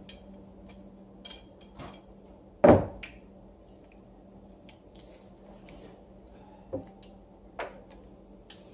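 Clicks and knocks from a dual-cartridge adhesive applicator gun being handled, its plunger rods and frame rattling, with one much louder knock about three seconds in. A low steady hum sits underneath.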